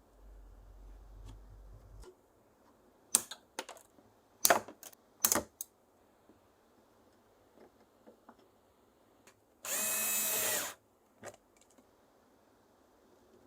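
A few sharp clicks and knocks of handwork, then a power drill runs in one short burst of about a second, about ten seconds in.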